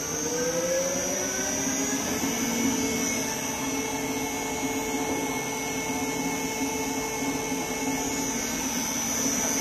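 Electric drive of a 30-litre double-sigma-blade kneader mixer running empty. Its whine rises in pitch for the first two seconds or so as the mixing speed is turned up, then settles into a steady hum and whine at the higher speed.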